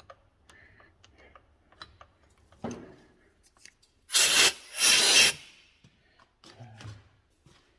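Two short rasping scrapes about four and five seconds in, each about half a second long, with light clicks and knocks of tools being handled around them.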